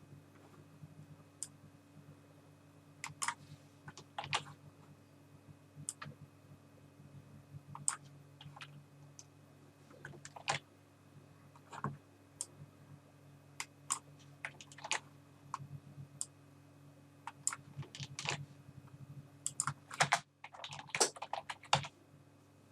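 Scattered computer keyboard keystrokes and clicks, irregular and spaced out rather than continuous typing, with a quicker flurry near the end, over a steady low hum.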